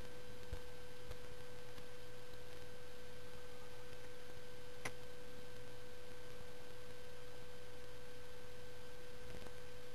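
A steady background hum: one unchanging, fairly high tone, low in level, with a single faint tick about halfway through.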